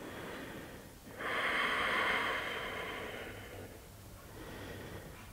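A woman's long, audible exhale, breathed out slowly as she lowers her back under control; it starts about a second in and fades away over two to three seconds.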